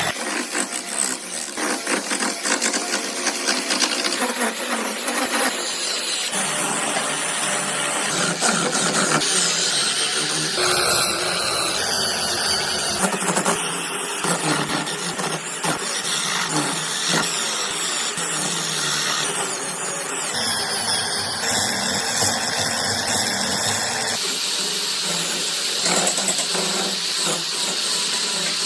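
Woodworking power tools running against wood in a string of short edited clips. The steady noisy whirring changes abruptly every few seconds as the shots change.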